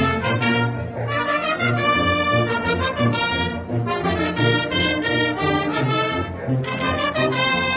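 Bersaglieri fanfare, a military brass band, playing a march, with bright brass melody over a steady pulsing bass line.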